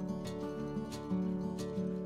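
Background instrumental music, with held notes that change every half second or so and light recurring strikes.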